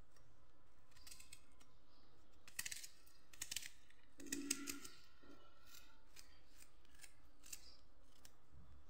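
Kitchen knife cutting through a raw onion held in the hand: a series of short, crisp snips, most of them between about two and five seconds in.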